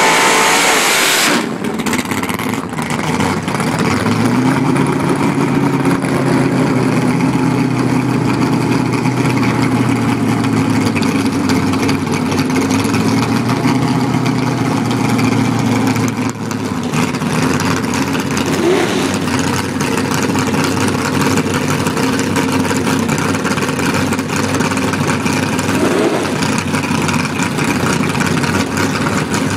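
Fox-body Ford Mustang drag car ends a burnout with a loud blast of engine and spinning tyres, which cuts off about a second and a half in. Its engine then idles with a steady low note while the car creeps up and sits at the starting line. The pitch shifts a few times, with two short blips of the throttle.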